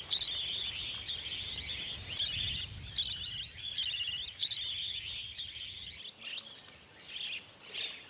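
Budgerigars chattering: short bursts of fast, warbling chirps, one after another, growing sparser after about six seconds.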